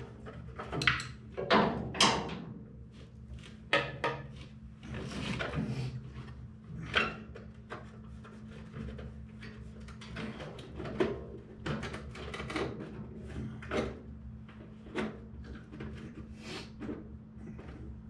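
Irregular knocks and clunks, well over a dozen, over a steady low hum.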